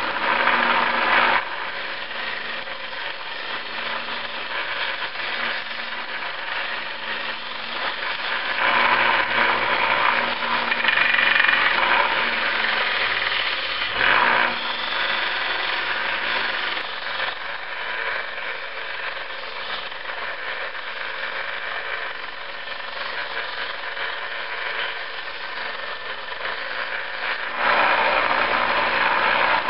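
Electric power tool running continuously against the old hatchet, stripping off old finish and grime. Its loudness rises and falls as it bears on the work, and it gets louder near the end.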